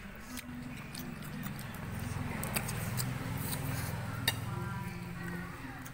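Mealtime table sounds: a few sharp clicks of chopsticks and spoons against ceramic bowls over a low steady hum.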